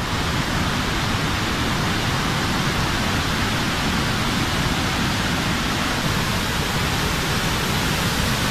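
A rain-swollen mountain waterfall and stream rushing over rocks, in a steady, unbroken rush of water.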